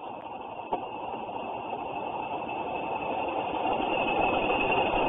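Class 40 diesel-electric locomotive 40012, with its English Electric V16 engine, approaching on the line, its engine and wheel noise growing steadily louder.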